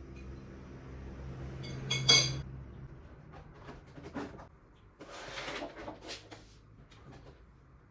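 Crockery and cutlery being handled: one sharp ringing clink about two seconds in, then lighter clicks and a brief scraping rustle. A low hum stops about two and a half seconds in.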